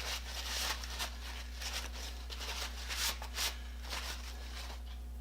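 Irregular rubbing and scrubbing strokes as the hand grinder's casing is wiped clean of grease and oil with alcohol and water. The strokes stop shortly before the end.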